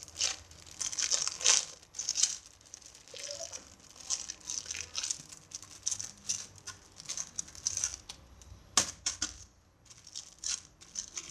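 Crinkling and crackling as a homemade squishy is squeezed and turned over in the hands: rapid, irregular crackles, with one sharp click a little under nine seconds in.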